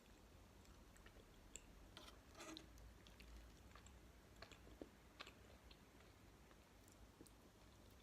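Close-up chewing of soft jello and gummy candy: scattered small wet mouth clicks, bunched together about two seconds in.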